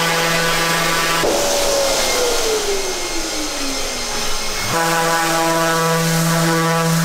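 Electric random orbital sander running with a steady whine. About a second in it is switched off and winds down with a long falling whine, then near five seconds it is switched back on and runs steadily again.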